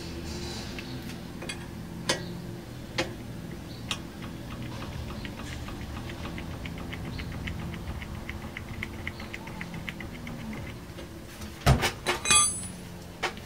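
Light metallic clicks of a spanner working the bleeder screw on a brake caliper while the brakes are bled, with a run of fast, even faint ticks through the middle and a cluster of louder clinks near the end.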